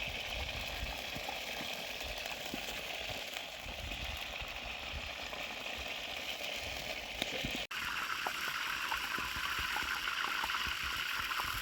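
Food sizzling and crackling steadily in hot oil in a sadj pan over a campfire. About eight seconds in the sound cuts abruptly to a louder, hissier rush.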